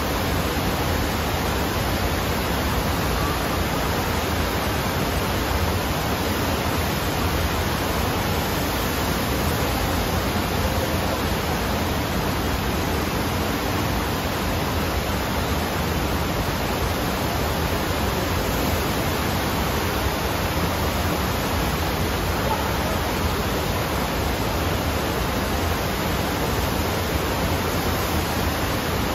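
Indoor standing-wave surf machine: a thin sheet of pumped water rushing steadily up the sloped riding surface, a loud, even, unbroken roar of water.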